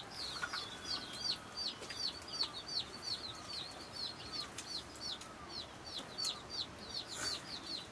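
Chicks peeping over and over, a steady run of short, high, downward-sliding peeps at about three a second.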